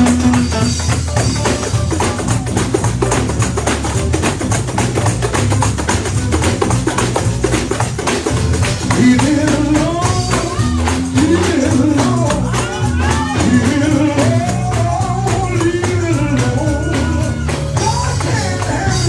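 Live gospel music: a tambourine and band keep a fast, steady groove. About halfway through, a man's amplified voice comes in singing over it through a microphone.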